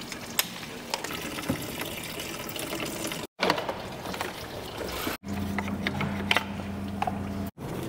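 Workshop handling noise as engine-bay parts are unclipped and lifted out: scattered light clicks and plastic rattles over a steady hiss. The sound breaks off abruptly three times, and a low steady hum runs through the later part.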